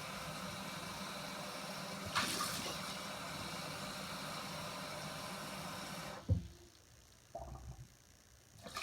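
Water running steadily from a tap, shut off abruptly about six seconds in, followed by a single knock.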